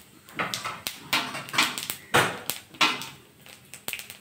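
Nigella seeds spluttering in hot mustard oil in a kadai: a run of irregular crackling pops and short sizzling bursts, the sound of the seeds tempering in the oil.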